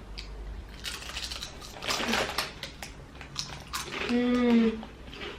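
Crackly crunching and rustling of thick potato chips being taken from the bag and bitten, with a short voiced exclamation about four seconds in.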